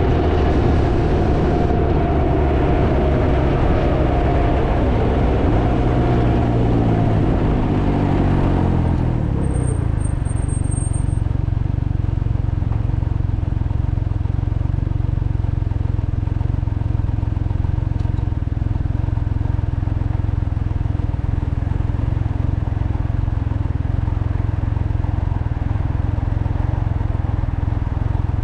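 Can-Am Ryker three-wheeler's engine running on the road, buried in heavy wind buffeting on the microphone. About six seconds in, the engine note falls over a few seconds as the bike slows, then holds a steady low rumble under the wind.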